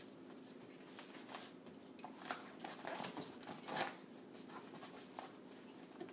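Puppies clambering on the fabric and mesh walls of a pop-up playpen: scratching and rustling, busiest from about two to four seconds in, over a faint steady hum.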